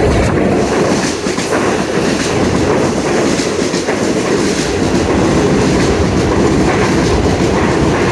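Long Island Rail Road commuter train passing through the station at speed without stopping: a steady, loud rush of wheels on rail with repeated clicks of wheels over the rail joints.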